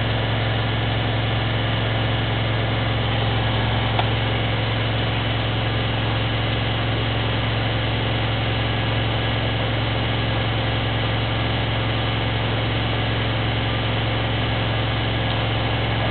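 Bauknecht washing machine spinning steadily at high speed, its spin cycle at 1400 rpm: an even drum-and-motor hum with a whooshing rush. A small click about four seconds in.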